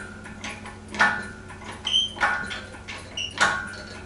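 Metal clanks from an engine hoist and its chains as the hanging engine is raised: three knocks about a second apart, each with a short metallic ring.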